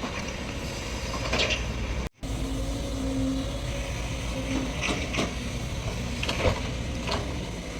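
SANY hydraulic excavator's diesel engine running steadily under digging load, with several short metallic knocks from the bucket and boom. The sound cuts out for a moment about two seconds in.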